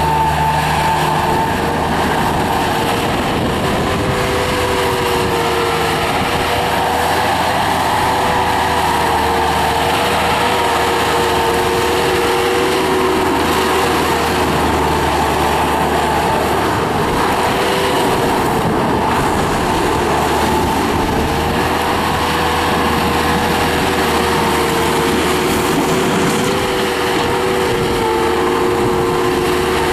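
1998 Bobcat 863 skid steer loader's 73 hp Deutz turbo diesel running steadily at working throttle while the machine is driven and operated. There is a steady whine that wavers slightly in pitch.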